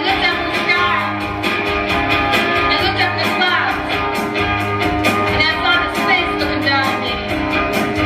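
Rock song with guitar, a steady beat and a singing voice.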